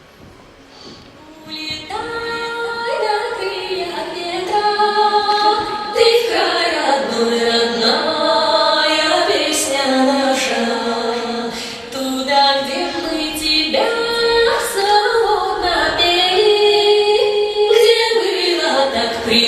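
A song with a female singing voice over a backing track, starting after about a second and a half of quiet.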